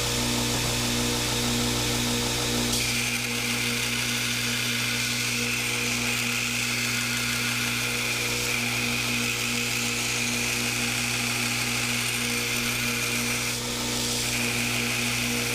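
Electric power tool running steadily while working a steel knife blank during profiling. A higher whine comes in about three seconds in, drops out briefly near the end, then returns.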